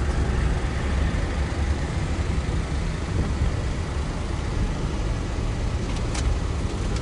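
Car driving slowly, heard from inside the cabin: steady low engine and road noise, with a single sharp click about six seconds in.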